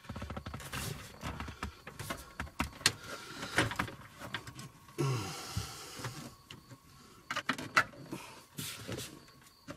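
A plastic dashboard trim panel being pushed and pressed into place by hand: a series of irregular plastic clicks, knocks and scrapes. A short falling sound comes about five seconds in.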